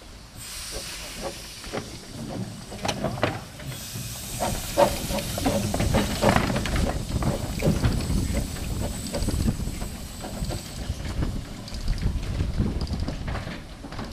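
Small narrow-gauge steam locomotive moving slowly, with a steady hiss of steam and scattered clanks and knocks from its running gear over a low rumble; the hiss grows louder about four seconds in.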